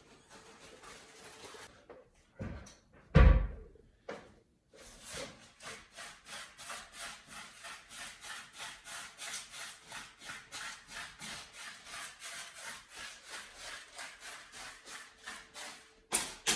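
A heavy thump about three seconds in, then a long run of even rubbing or scraping strokes, about three a second, which stops shortly before the end.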